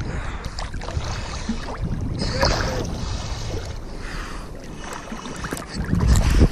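Water sloshing and splashing against a camera held at the water's surface, with a deeper, louder rush of water near the end.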